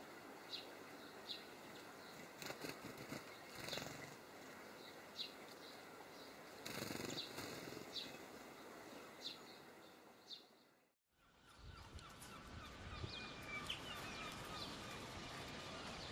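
European greenfinches calling: short, high single chirps repeating about once a second over a steady outdoor hiss. After a cut about eleven seconds in, a busier stretch of rapid twittering follows.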